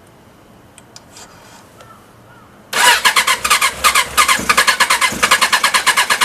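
Suzuki GSX-R750 inline-four engine turning over on its electric starter. It starts suddenly about three seconds in, with a fast, even chugging of about nine beats a second.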